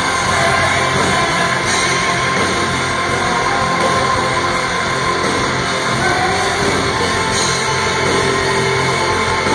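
A live rock band playing loud, heavy music through a concert PA, with electric guitars prominent and no clear vocals. The sound is a dense, steady wall of music.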